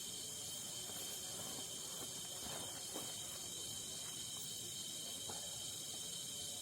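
Night insect chorus of crickets: a steady, high-pitched trilling drone, with a few faint clicks in the middle.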